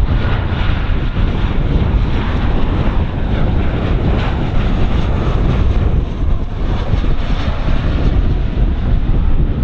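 Boeing 737-800 jet engines running as the airliner passes, with a hissing whine that eases near the end. Heavy wind buffeting on the microphone rumbles underneath.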